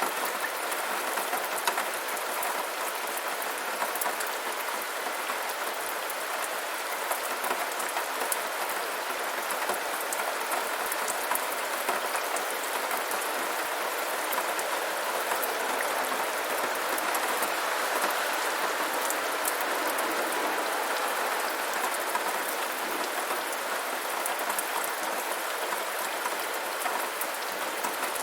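Steady rainfall: an even hiss of rain with many small drops pattering on a hard surface.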